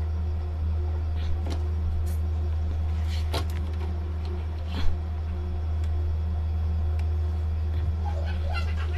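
Steady low electrical hum throughout, with a few faint clicks and one sharper tap about five seconds in.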